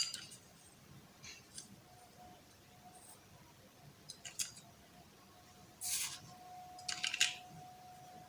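Scattered soft clicks and short snipping sounds of hands working with small objects, with a longer rasp about six seconds in and a quick run of clicks just after, over a faint steady hum.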